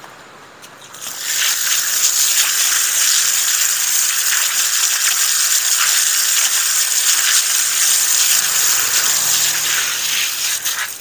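Water gushing from an outdoor standpipe onto a concrete slab, starting about a second in, running steadily, and cutting off near the end.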